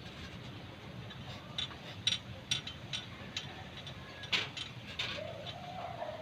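Scattered light metallic clicks and taps of hand tools and small parts handled on an engine block during timing-gear work, irregular, with the sharpest clicks about two seconds and four seconds in.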